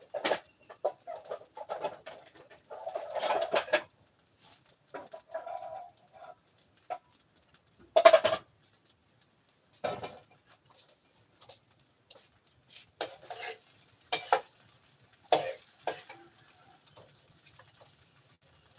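Chickens clucking and calling on and off, with the loudest call about eight seconds in.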